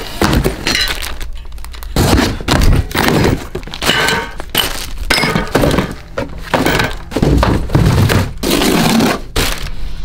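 Cardboard shipping boxes being torn open and packaged bike parts handled: a busy run of tearing, rustling and thuds.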